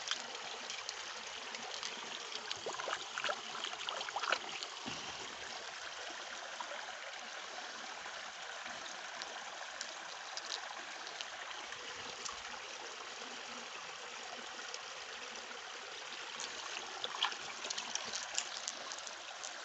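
Water of a stream at a waterfall flowing steadily. A few small clicks and knocks come through about two to four seconds in and again near the end.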